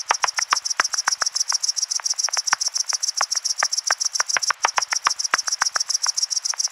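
Cricket-type insect song: a high-pitched, fast and even pulsing trill, with irregular sharp clicks scattered through it.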